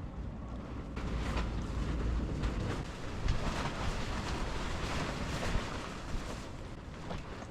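Strong wind gusting, with low rumbling wind noise buffeting the microphone; it swells about a second in and eases near the end.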